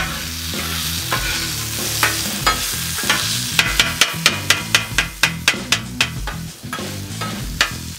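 Thin-sliced ribeye sizzling on a Blackstone flat-top griddle while a steel spatula chops and breaks it up. The spatula edge clacks on the griddle plate in a few scattered taps, then in a quick run of about four sharp taps a second through the second half.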